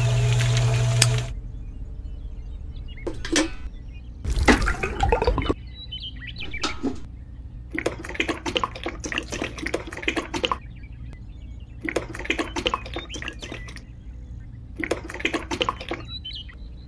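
A miniature toy cement mixer's small electric motor hums loudly for about the first second, then stops. Wet, grey, sandy slurry is then poured from a small plastic cup into a shallow trench, splashing and gurgling in several separate pours of one to three seconds each.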